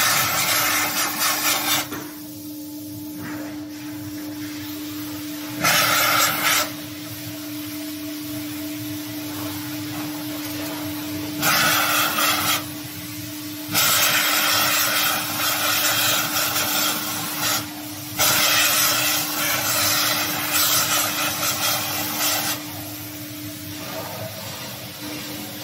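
Soft toy stuffing machine running with a steady hum, broken by several loud bursts of rushing air, each one to four seconds long, as polyester fibre is blown through the filling nozzle into a plush bear. The bursts stop a few seconds before the end, leaving only the hum.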